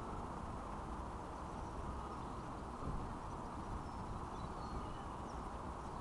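Steady outdoor background noise with an uneven low rumble, and a few faint, short high bird chirps scattered through it.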